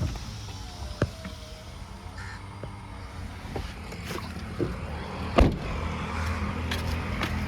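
A steady low vehicle hum, growing slightly louder, with a few sharp clicks and knocks; the loudest knock comes about five and a half seconds in.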